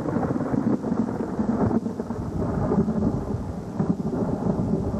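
Storm wind buffeting the camcorder's microphone near a tornado: a steady rough rumble that rises and falls, with no separate claps or hits.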